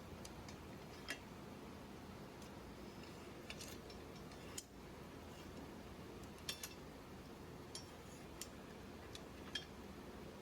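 Faint, irregular metallic clicks of homemade long welding clamps being worked open and shut, about a dozen sharp clicks over a low steady background hum.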